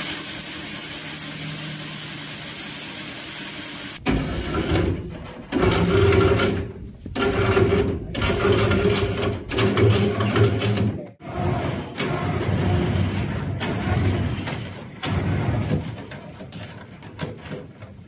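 Sawmill machinery: a steady mechanical hiss and hum, then from about four seconds in a motor-driven whirring that starts and stops in irregular spurts with short pauses between them.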